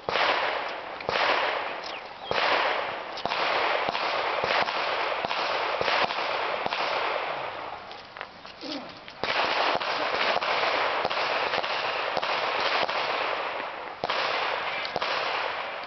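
Dense strings of gunfire, shot after shot in quick succession, coming in sudden loud stretches that fade away, with a short break about eight to nine seconds in.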